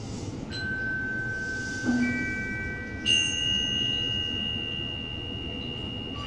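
Struck metal chimes: three bell-like notes at different pitches, about half a second, two and three seconds in, each ringing on long and overlapping the next, the last one higher and brighter.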